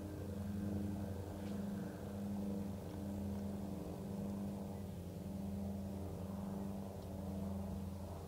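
A steady low engine hum, a motor running at a constant speed that swells and eases slightly about once a second.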